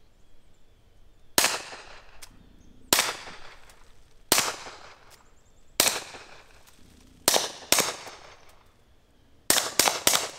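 Walther PPK/S .22 LR pistol firing CCI Mini Mag 40-grain target rounds: about ten sharp shots, each with a short echoing tail. The first six come one at a time about a second and a half apart, then four follow in quick succession near the end.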